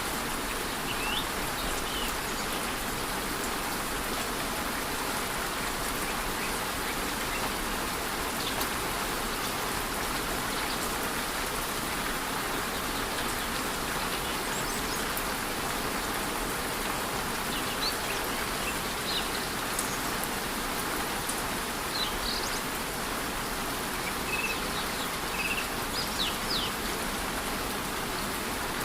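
Steady rush of a rainforest waterfall with light rain falling, and scattered short, high bird chirps, more of them in the second half.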